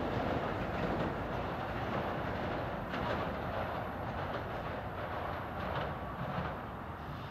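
NJ Transit commuter train running away down the track, a steady rumble with a few wheel clicks over rail joints, slowly fading.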